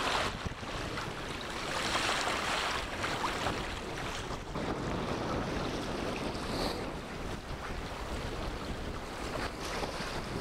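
Wind blowing across the microphone, with small waves breaking and washing over shallow water in the first few seconds.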